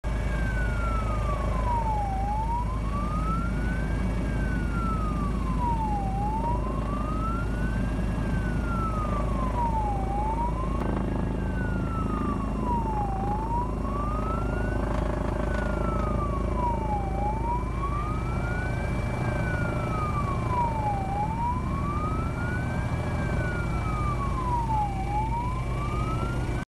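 Police siren wailing slowly, rising and falling in pitch about once every four seconds, over a steady low rumble.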